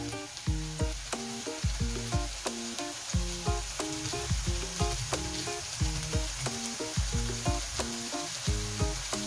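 Sliced patola (sponge gourd) sizzling as it sautés with garlic and onion in a nonstick wok, a steady frying hiss. Background music with regular pitched notes plays over it.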